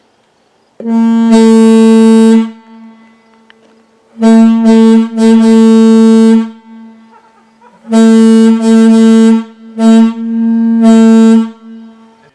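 Railroad air horn sounding one steady note in about seven blasts, some short and some long, with a faint tone at the same pitch lingering between blasts.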